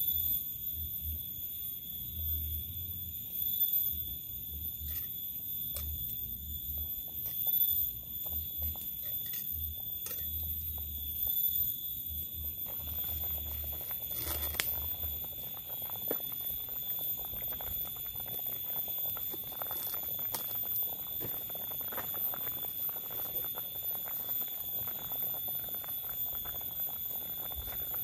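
Pot of water with tofu boiling over a wood fire, with scattered clicks and crackles; about 13 seconds in a louder bubbling hiss comes in. A steady high-pitched whine sounds underneath.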